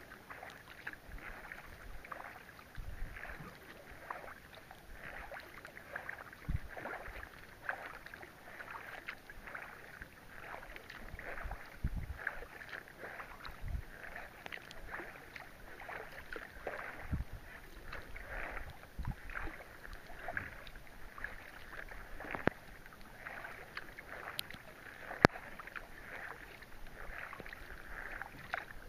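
Kayak paddling in the rain: paddle splashes and water dripping, with a steady patter of raindrops on the water and the kayak's deck. Two sharp knocks stand out in the second half.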